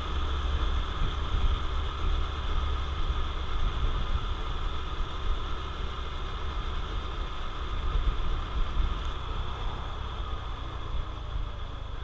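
Riding noise from a Honda CT125 Trail 125 under way: its 125 cc single-cylinder four-stroke engine running steadily under heavy wind rush on the action camera's microphone.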